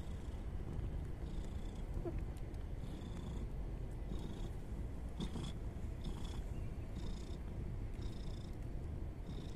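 Mother cat purring steadily while nursing her newborn kittens, with a faint high hiss recurring about once a second.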